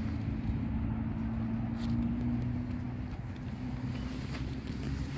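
A motor vehicle engine running with a steady low hum, like road traffic; its pitch shifts slightly near the end.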